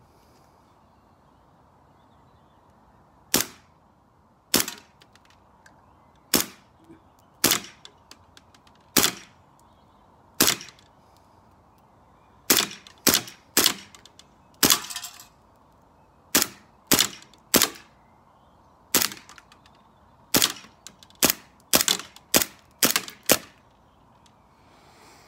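Umarex Legends P08 CO2 BB blowback air pistol firing about twenty sharp shots, one or two seconds apart at first, then in quicker strings about half a second apart. Some shots are followed by a fainter click.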